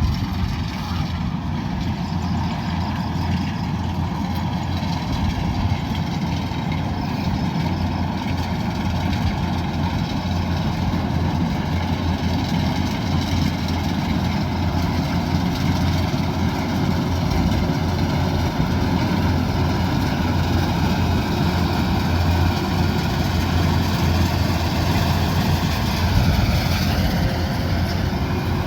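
Kubota DC108X combine harvester running steadily, its diesel engine and machinery giving a continuous low drone.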